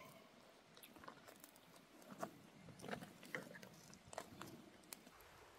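Faint wood campfire crackling, with a few sharp pops and cracks scattered irregularly.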